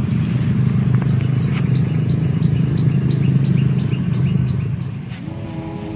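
A small bird chirps over and over, about three short calls a second, over a loud steady low rumble that drops off near the end.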